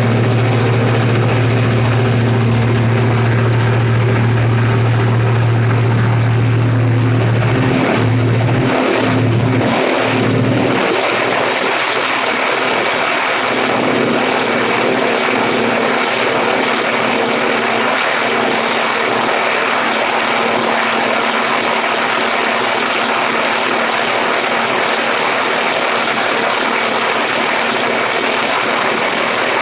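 Diesel engine and propeller of a Cessna 172, heard from a strut-mounted camera: a steady low drone that breaks up about eight seconds in and gives way to a steady, dense rushing of engine, propeller and airflow.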